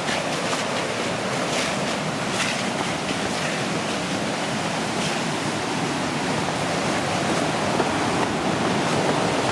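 Steady rush of Johnston Creek's water flowing through the canyon, a loud, even roar that grows a little louder near the end.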